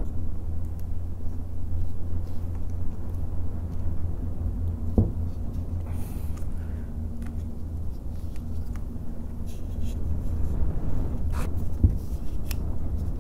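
Noctua NF-A14 PWM 140 mm PC fans, two pairs pushing their airflow into each other from the side and running off USB power, give a steady low rumbling rush of air with a faint steady hum. A few light clicks come about five seconds in and again near the end.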